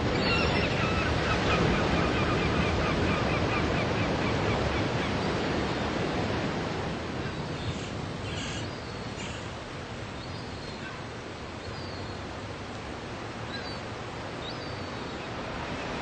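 Ocean surf breaking and washing up a sandy beach, a continuous rush of waves. It is loudest in the first few seconds and eases off after about six seconds.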